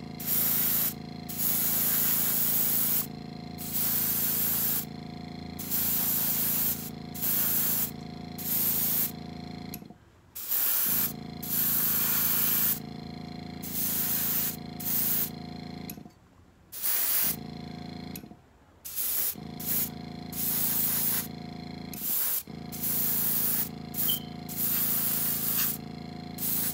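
Airbrush spraying paint in repeated bursts of hiss, each a second or two long, as the trigger is pressed and released. Under it runs the steady hum of the small airbrush compressor, which stops briefly a few times.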